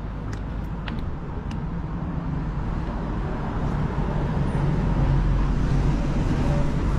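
Street traffic noise: a low rumble of road vehicles that grows louder over the first five seconds and then holds, with a few light clicks near the start.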